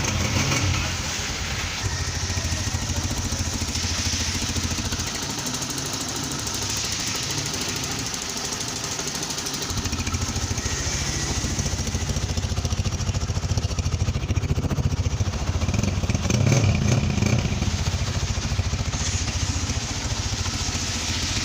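Honda CG125's single-cylinder four-stroke engine running steadily at around idle, getting briefly louder about three-quarters of the way through.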